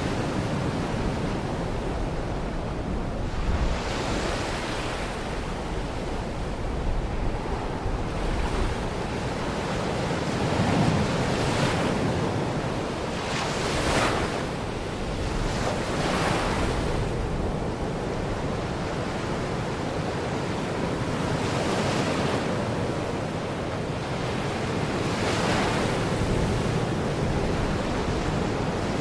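Baltic Sea waves washing onto the shore in a continuous hiss, with a brighter surge every few seconds as a wave breaks. Wind rumbles low on the microphone underneath.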